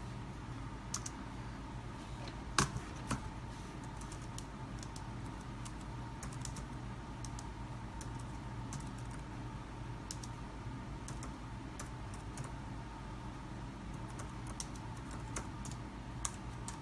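Keys being typed on a computer keyboard, irregular light clicks with one louder key strike a few seconds in, over a steady low electrical hum.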